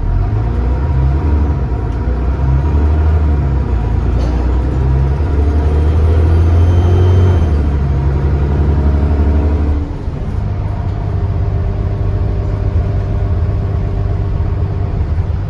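Diesel bus engine heard from on board, pulling hard with its note rising for about ten seconds, then dropping suddenly to a lower steady note, like an automatic gearbox changing up. A faint high turbo whistle rides on the engine while it pulls.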